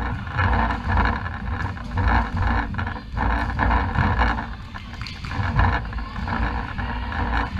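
Sports-hall background noise: a steady low rumble with a hiss of hall noise and a few faint knocks.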